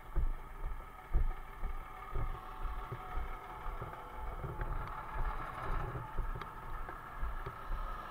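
Road traffic: vehicle engines running as cars and a lorry pass slowly, with an engine sound growing stronger about halfway through. Irregular low bumps of handling noise on the body-worn microphone as the wearer walks.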